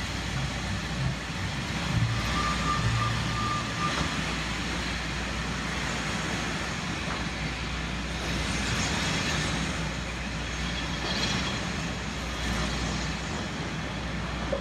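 Heritage steam-hauled passenger train pulling away: the steam locomotive working and the coaches rolling over the track in a steady noise, with a few louder bursts of exhaust in the second half.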